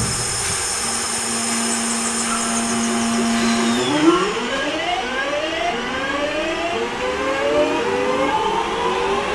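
Siemens Class 350 Desiro electric multiple unit pulling away. Its traction equipment gives a steady hum, then from about four seconds in a run of rising whines, each one climbing in pitch before the next starts, as the train accelerates.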